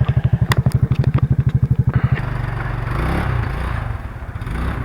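ATV engine idling with an even, rapid chug, then revving up about two seconds in and running on under load.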